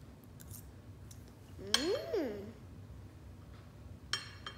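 A metal fork clinks against a ceramic plate, sharply near the end and once more about a third of the way in. Between them a child hums a short 'mmm' that rises and falls in pitch as she tastes a mouthful of jelly.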